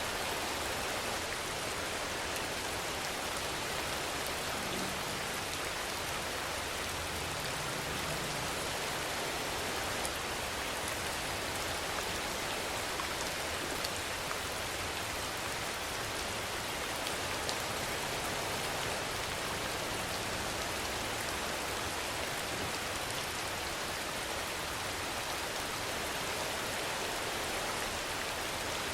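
Steady rainfall: a dense, even hiss of rain on a surface, with a few faint separate drop ticks.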